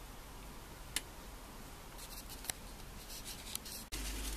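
Faint steady hiss from a lidded stainless saucepan of water and broccoli heating on the hob, with a few light ticks. Near the end the hiss turns louder and steadier as the water steams under the glass lid.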